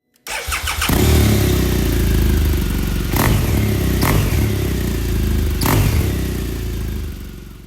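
Motorcycle engine starting up within the first second, then running with a fast, deep pulsing beat and three short sharp blips along the way. It fades out near the end.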